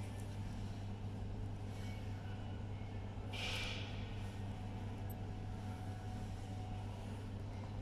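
A steady low background hum, with a brief rustle of handling noise about three and a half seconds in and a tiny click a little later.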